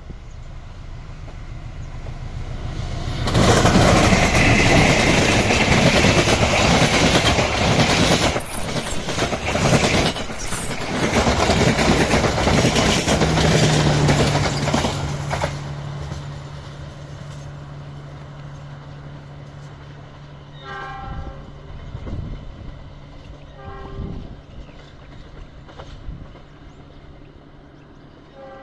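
A locomotive-hauled train passes close at speed: loud rushing and rumbling of the locomotive and carriages for about twelve seconds, then fading away. A steady low hum lingers afterwards, and a few short train-horn toots sound near the end.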